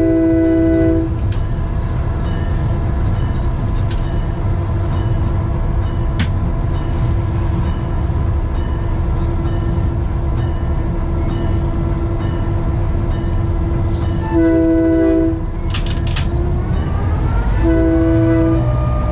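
EMD F7 locomotive's air horn sounding over the steady rumble of its 567 prime mover, heard from inside the cab. A horn blast ends about a second in, a short blast comes near the three-quarter mark, and another begins near the end. A few sharp clicks are scattered through.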